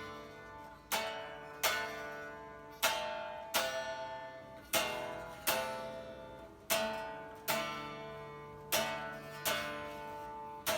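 Guitar strumming: single chords struck in a loose repeating rhythm, often two close together and then a longer gap. Each chord rings on and fades before the next.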